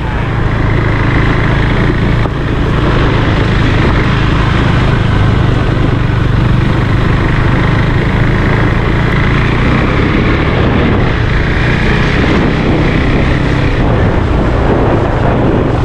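Motorcycle engine running steadily as the bike rides along at low road speed, heard from the rider's seat.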